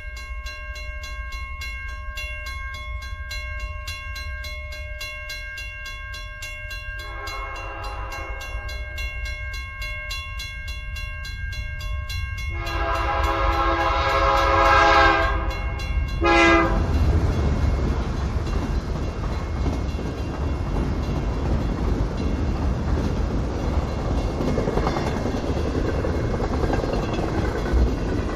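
Railroad crossing bell ringing steadily while a freight train approaches, sounding its horn in three blasts, the second long and louder and the third short. The train then passes the crossing with a continuous rumble and rail clatter.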